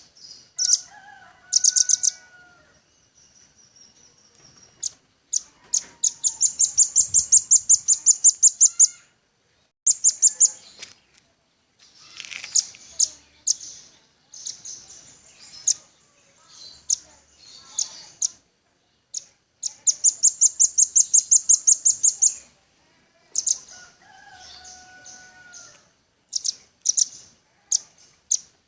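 Velvet-fronted nuthatch calling: loud, rapid trills of sharp, high chips, two long runs of about seven chips a second lasting about three seconds each, between shorter bursts of a few chips. Twice, a fainter, lower falling whistle sounds under the chips.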